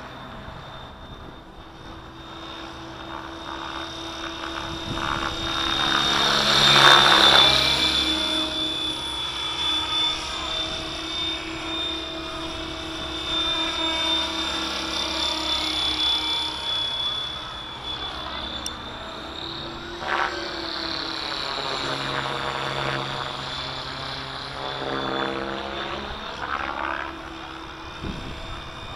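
Kasama Dune 600 RC helicopter in flight, its steady high-pitched motor and rotor whine rising and falling as it flies past. It is loudest about seven seconds in and again in the second half, with the pitch shifting on each pass.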